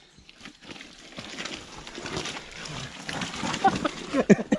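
Shoes scuffing and sliding on wet, slippery dirt and gravel as a man scrambles down a steep muddy trail, with short grunts of effort near the end.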